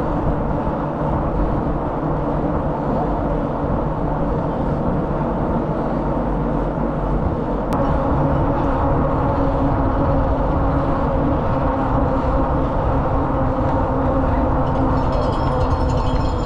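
Steady rush of wind on the microphone with bicycle tyres humming on asphalt, from a bike riding along a paved road. A single sharp click comes about eight seconds in, and a rapid high ticking joins near the end.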